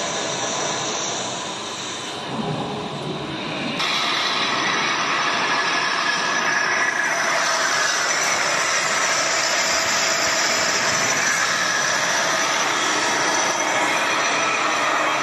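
Hoston C6266Y heavy manual metal lathe running: a loud, steady mechanical noise with no clear pitch, which comes in suddenly about four seconds in after a quieter stretch.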